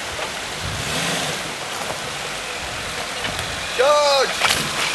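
Suzuki SJ 4x4's engine running at low revs as it crawls along a muddy track. About four seconds in, a short rising-and-falling call from a person's voice.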